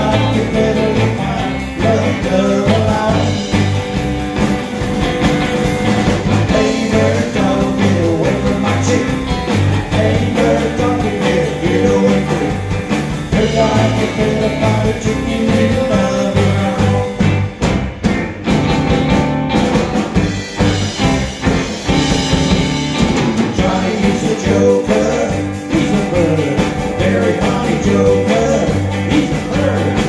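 Live rock-and-roll band playing: two electric guitars, electric bass and drum kit, with a steady pulsing bass line.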